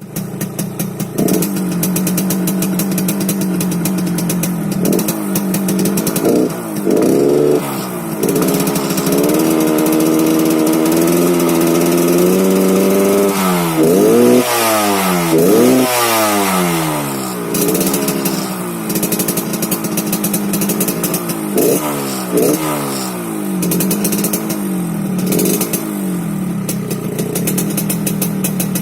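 Yamaha RX-King's single-cylinder two-stroke engine on its stock exhaust, idling and repeatedly revved: short throttle blips, a held higher rev, and the biggest rise and fall about halfway through. The exhaust has a snoring ('ngorok') sound.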